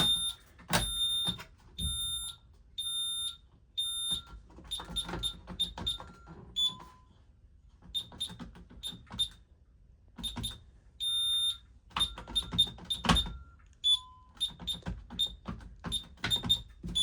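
Honeywell 6150 alarm keypad beeping as its buttons are pressed to arm the system: a long irregular string of short, high-pitched beeps, some about half a second long and others very brief. Several sharp knocks from the keypad being handled fall among the beeps.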